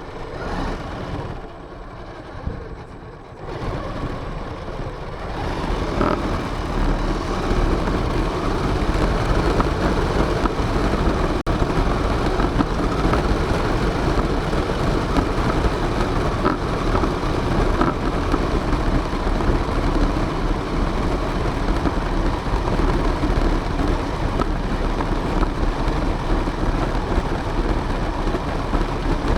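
Radio-controlled car driving, heard from a camera mounted on it: a steady, noisy rumble of tyres and drivetrain that builds up over the first six seconds and then holds.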